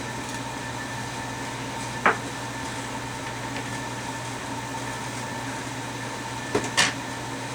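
Steady low hum of the room, broken by one sharp click about two seconds in and two quick clicks near the end: hands handling the hot sauce bottle.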